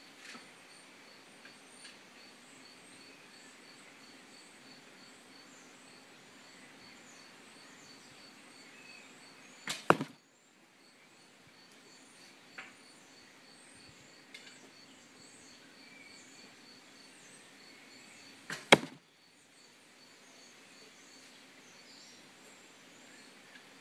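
Boarrior Bows longbow shot twice, about nine seconds apart, each shot a quick pair of sharp cracks. Steady, evenly spaced insect chirping runs underneath.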